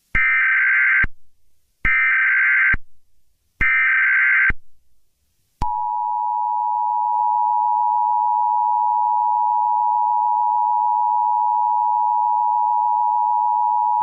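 Emergency Alert System alert tones: three roughly one-second bursts of SAME header data tones, then, about five and a half seconds in, the steady two-tone attention signal held for about eight seconds.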